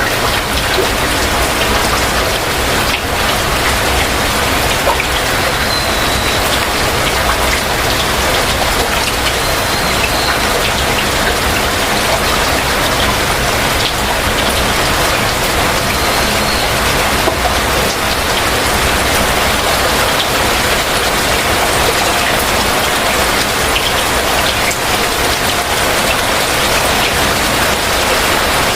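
Heavy rain falling steadily, a dense even hiss of countless drops striking surfaces.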